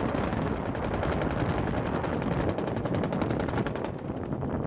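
Rapid, sustained automatic gunfire, typical of the AH-1Z Viper's 20 mm three-barrel rotary cannon firing a long burst, over the steady rumble of the helicopter.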